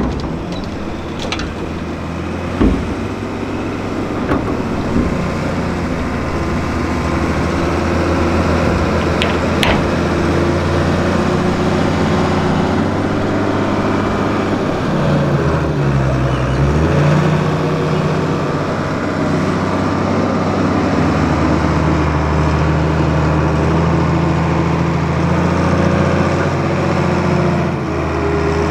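Fendt Favorit 514 C tractor engine working steadily under load while pushing soil with a levelling blade; about halfway through the engine note dips and climbs back. A couple of sharp knocks sound in the first ten seconds.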